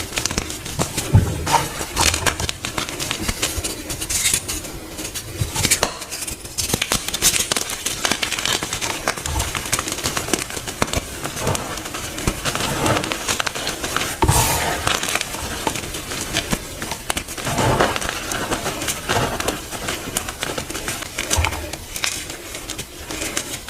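Dyed powder blocks being crushed by hand, a continuous run of dry, crumbly crunches and crackles.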